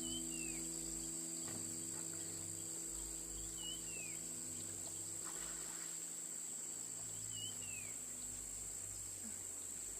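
Steady high-pitched insect chorus, with a bird giving a short down-slurred whistle three times, evenly spaced.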